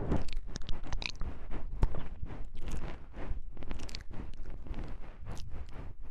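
Close-miked ASMR sounds of wooden knobs being handled: a dense, irregular stream of small clicks and crackles.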